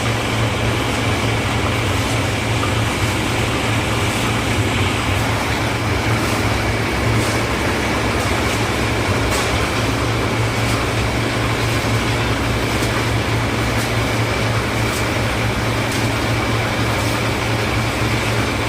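Concrete mixer with lift hopper running steadily, its engine a constant low hum with a steady high whine alongside.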